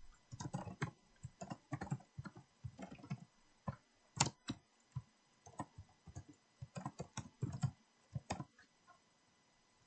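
Typing on a computer keyboard: a run of irregular keystrokes that stops about eight and a half seconds in.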